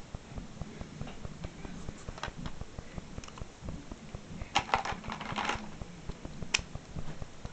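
Drawing markers being handled: light scratching of a marker on paper at first, then a rattling cluster of clicks about halfway through as pens are put down and picked up, and one sharp click about a second later.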